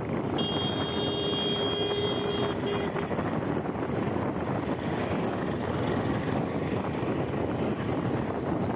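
Steady wind rush on the microphone with road noise from a bicycle riding on concrete. Just after the start a vehicle horn sounds for about two seconds, then gives a short second honk about three seconds in.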